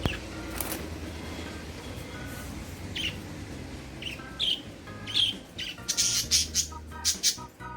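Budgerigars chirping: scattered short high chirps, then a louder spell of rapid, harsh chattering about six seconds in.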